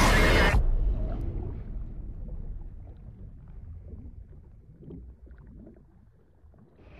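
A loud hiss of static that cuts off about half a second in, then a low, muffled underwater rumble that slowly fades away.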